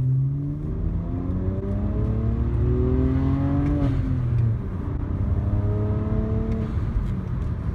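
BMW N54 twin-turbocharged inline-six, heard from inside the cabin, accelerating hard on stock boost of about 10.5 psi. The engine pitch climbs, falls back about four seconds in, then climbs again.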